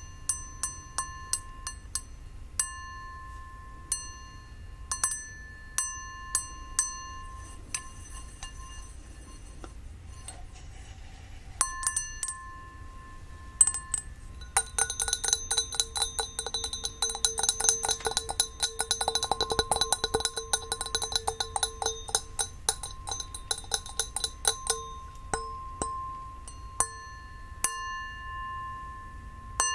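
Crystal glass with a gold rim being tapped, each tap ringing out like a bell with a clear, lingering tone. About halfway through comes a long flurry of rapid taps lasting roughly ten seconds, then single ringing taps resume.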